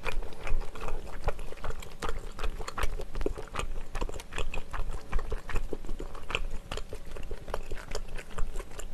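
Close-miked eating sounds: a quick, irregular run of wet, sticky clicks and smacks as chopsticks pull wide Chinese glass noodles out of a saucy mala stir-fry, along with chewing.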